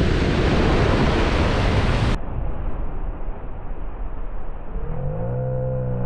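Ocean surf and wind buffeting the microphone, cutting off abruptly about two seconds in to a duller, steady rumble; near the end a low pitched hum swells and fades.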